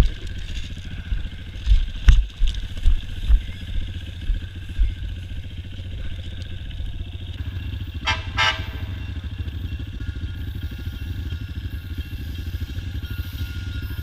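Honda CRF230 dirt bike's single-cylinder four-stroke engine running at low revs, with several heavy knocks and clatter in the first few seconds as the bike bumps off the rails and ballast. About eight seconds in, a horn sounds twice in quick succession.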